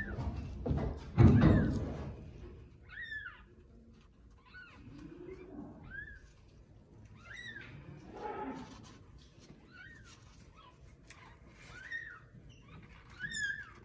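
Newborn kitten mewing over and over in short, thin, high-pitched squeaks, each rising and then falling in pitch, about ten in all. A loud rustling thump comes about a second in, and softer rustles follow later.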